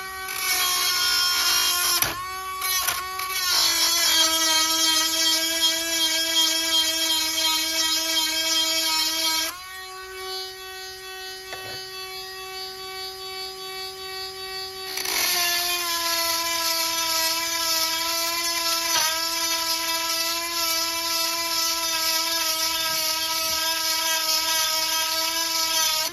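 Small handheld rotary grinder with a 7/32-inch grinding stone whining steadily as it sharpens the cutters of a chainsaw chain. The sound turns louder and harsher while the stone grinds a tooth, for most of the first nine seconds and again from about fifteen seconds on. In between, a quieter stretch is the grinder spinning free between teeth.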